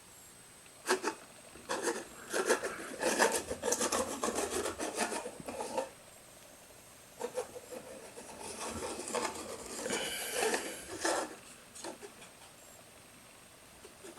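Hollow 3D-printed plastic BB-8 body rolling and rocking on a hard surface, a rough scraping rub in irregular bursts with short pauses between them.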